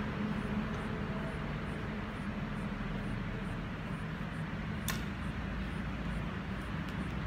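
Steady low rumble and hum of background noise, with one sharp click about five seconds in.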